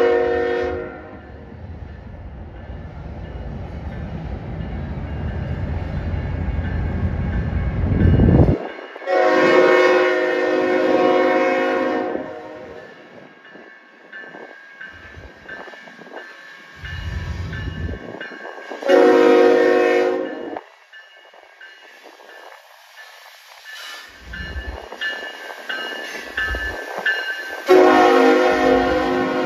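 BNSF freight locomotive's air horn sounding a chord in four blasts: one at the start, a long one about nine seconds in, a shorter one about nineteen seconds in, and another near the end as the locomotive arrives. A low rumble swells over the first eight seconds and cuts off suddenly, and quieter low rumbling comes and goes between the later blasts.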